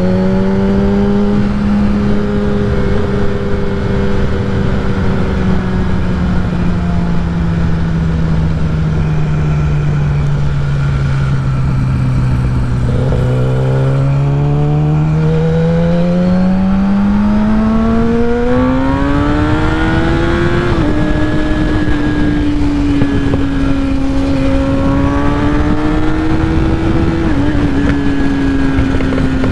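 Kawasaki ZX-10R's inline-four engine through a Graves full titanium race exhaust, ridden at freeway speed with wind rushing past. The engine note sags slowly as the throttle eases, then climbs steadily for several seconds under acceleration, drops in a sudden step about two-thirds in as it shifts up, and settles to a steady cruise.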